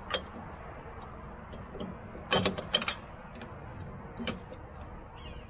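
A few sharp metallic clicks and knocks from handling a jon boat launch wheel bracket and its pin hardware: one shortly after the start, a quick cluster a little past two seconds, and one more past four seconds.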